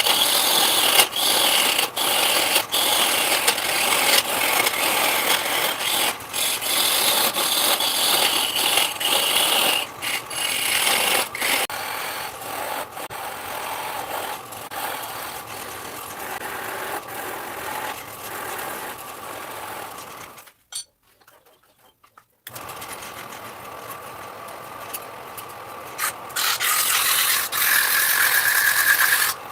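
A power tool working wood, with steady grinding and scraping noise that changes abruptly several times. It drops out for about two seconds a little past two-thirds of the way through.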